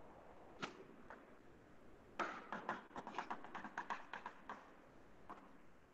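Chalk tapping and scraping on a blackboard as lines are drawn: one tap just over half a second in, then a run of quick taps and short strokes from about two seconds in to about four and a half seconds.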